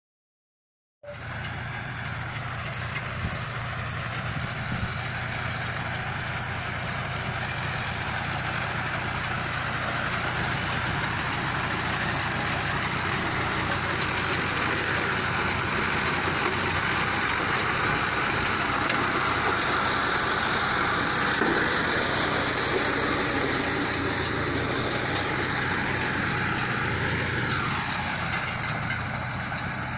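Multi-crop baler at work, its drive engine running steadily under a broad clatter of machinery, starting abruptly about a second in. Near the end a tone slides down in pitch.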